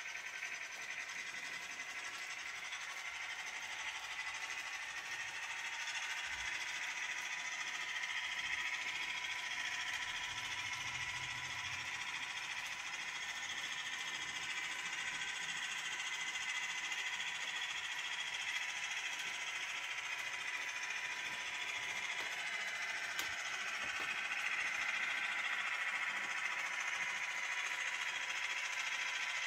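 Model railway train running: a steady whirr from the electric motor of a model Dutch class 600 diesel shunter, with the running noise of a long train of about forty freight wagons on the track. The shunter is hauling the train as a pulling test.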